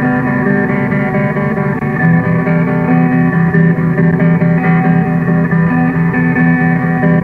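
Lo-fi home cassette recording of guitar music, dense sustained layered guitar tones in a noise-shoegaze style. It is dull with little treble, and was overdubbed by recording one tape player through a portable recorder's microphone.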